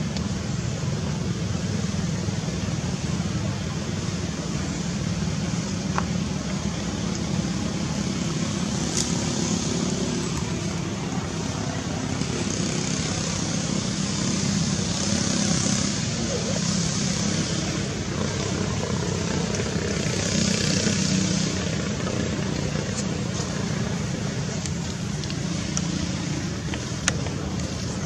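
Steady outdoor background noise: a low rumble with a hiss over it, swelling a little now and then, and a few faint ticks.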